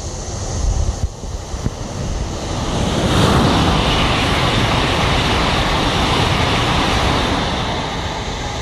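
Taiwan High Speed Rail 700T bullet train passing close at speed: a broad rush of air and wheel-on-rail noise swells about three seconds in, holds for several seconds, then eases slightly as the train pulls away. Wind buffets the microphone at the start.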